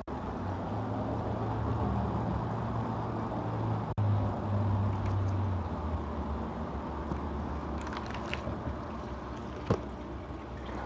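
Steady low hum with hiss, broken by two brief dropouts in the audio, one at the very start and one about four seconds in. A few light clicks and one sharper tick come in the last three seconds.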